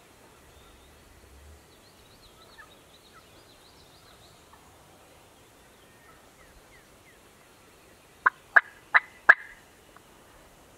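Four short, sharp turkey calls in quick succession near the end, over quiet woods with faint songbird chirps.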